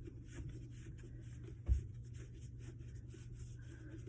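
Rubbing and scraping of hands turning a drain pipe's slip nut to hand-tighten it, in repeated short strokes, with one low thump a little under halfway through.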